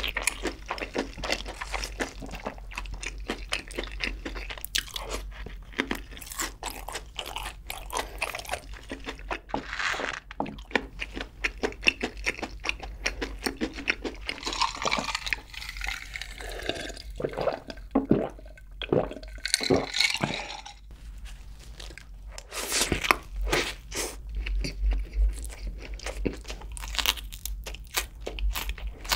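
Close-miked crunching and chewing of crispy fried chicken, with wet mouth sounds. Near the end comes a bite into a double cheeseburger.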